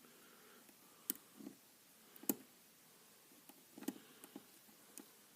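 Faint, scattered metallic clicks and taps of a hook pick working the pins of a pin-tumbler challenge lock. There are about six separate clicks, a second or so apart.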